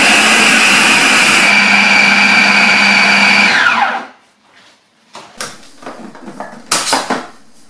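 Bosch MultiTalent food processor running at full speed, blitzing flour and vegetable shortening into pastry crumb. About three and a half seconds in it is switched off and its whine falls away as the blade spins down. A few light clicks and knocks follow as the lid is handled.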